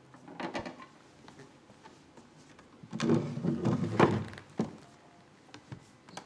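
Someone moving about on a theatre stage: knocks and scraping, loudest in a cluster from about three to four and a half seconds in, with a sharp click near the end.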